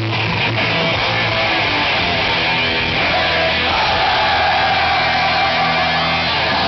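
A heavy metal band playing live and loud: distorted electric guitars over bass and drums, with a long high note held from about three seconds in.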